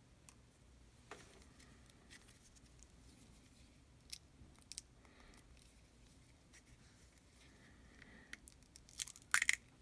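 Faint handling sounds of miniature painting: scattered small clicks and scrapes of a paint brush and paint pot being handled. A quick cluster of louder sharp clicks comes near the end.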